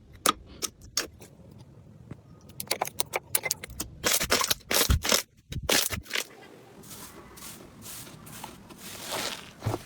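Slime being handled: a run of small crackling clicks and pops, with a cluster of louder pops from about four to six seconds in.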